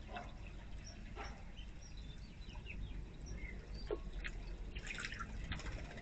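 Bird-bath fountain trickling and dripping steadily into its basin, with a few splashes as a bird steps into the water to bathe, and faint short bird chirps.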